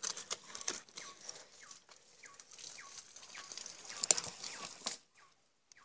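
Knife cutting and scraping a snapper fillet free on a cutting board: small clicks and wet scrapes, with a sharper knock about four seconds in. A bird chirps over it, short falling notes about twice a second.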